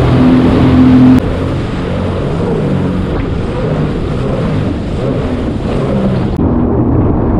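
Sea-Doo Spark Trixx personal watercraft running at speed over choppy water, its engine holding a steady pitch. About a second in, the sound changes suddenly to a rushing of water spray and wind, with the engine's pitch wavering as the hull rides the chop.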